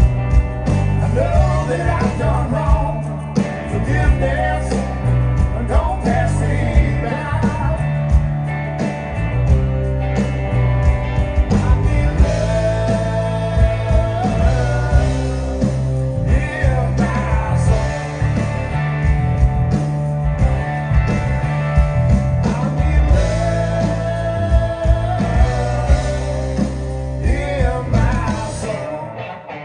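A live blues-rock band playing: two electric guitars, bass guitar and a drum kit, with a man singing over them.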